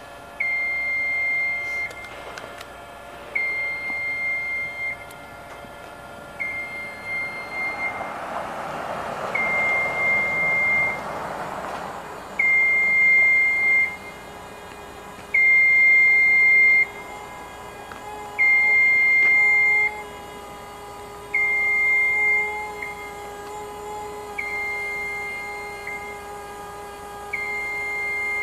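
Warning beeper on a Genie Z-40/23N RJ battery-electric boom lift sounding while the boom is being operated: even beeps of one pitch, each about a second and a half long, about every three seconds. A steady electric pump hum runs underneath in the second half.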